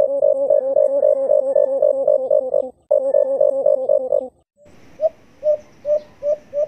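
Recorded calls of the alimukon (white-eared brown dove) played as a lure. A fast, even run of low coos, about four or five a second, breaks off briefly and stops a little past the middle. After a short gap a hissier recording starts: single short coos, each rising slightly, coming faster and faster.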